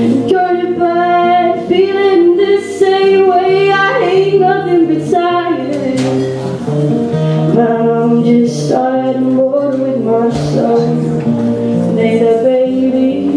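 A woman singing live while accompanying herself on an acoustic guitar, the voice carrying the melody over held guitar notes.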